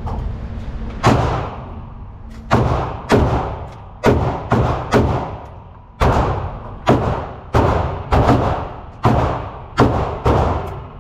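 Gunshots on a firing range: about a dozen shots at irregular spacing, each with a short echoing tail, muffled and thudding.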